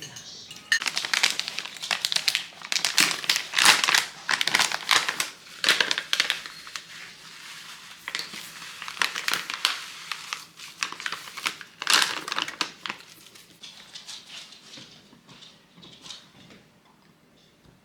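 Packaging being crinkled and handled in the kitchen: irregular crackling bursts, busiest in the first dozen seconds, then thinning out.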